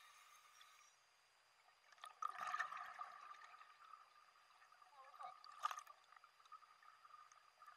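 Muffled underwater sound through a dive camera housing: a scuba diver's exhaled regulator bubbles gurgle for about a second a little over two seconds in. A short sharp knock follows near the end, over a faint steady hum.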